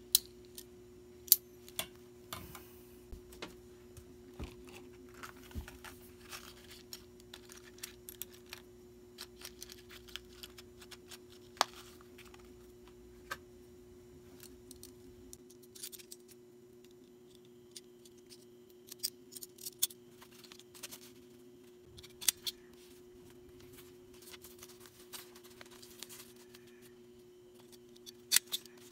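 Small items and packaging being handled while packing orders: scattered sharp clicks and taps, busiest at the start and near the end, over a steady low hum.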